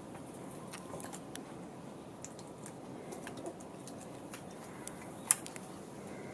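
A cat clambering in a tree and rubbing against the branches: faint scattered scratches and ticks of claws and fur on bark and twigs over a steady outdoor hiss, with one sharp click about five seconds in.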